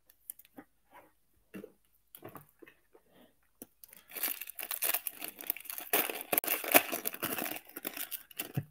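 Foil wrapper of a 1998 Topps Chrome football card pack being torn open and crinkled by hand. A few soft scattered ticks and rustles come first, then dense crinkling from about four seconds in.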